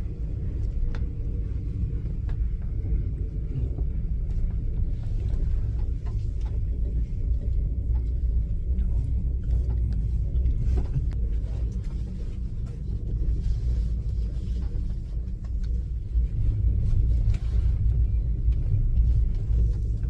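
Steady low rumble of a vehicle in motion, with scattered light clicks and rattles.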